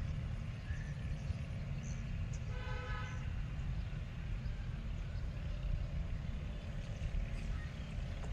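Outdoor ambience: a steady low rumble, with one short, flat horn-like toot about three seconds in.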